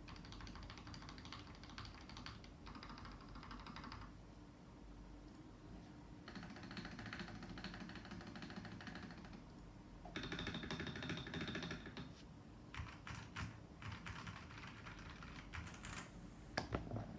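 Typing on a CMK87 mechanical keyboard with Kailh Box Red linear switches lubed with Krytox 205g0: quick runs of keystrokes with short pauses between them, then slower separate key presses, the loudest few near the end.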